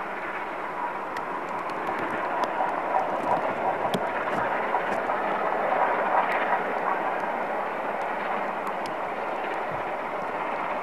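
LMS Jubilee class three-cylinder 4-6-0 steam locomotive working a train in the distance. Its exhaust is heard as a steady rush that swells a little in the middle.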